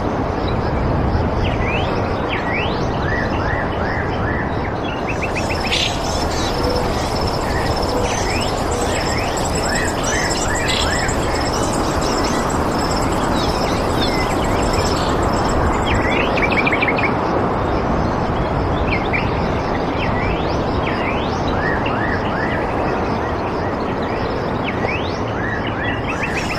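Birds chirping in many short calls over a steady, even rushing noise. A high, pulsing trill joins about five seconds in and stops shortly before the end.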